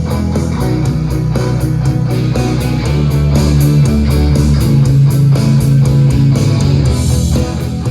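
Guitar-driven rock music with bass and a steady beat, played through a Marantz 2265B stereo receiver.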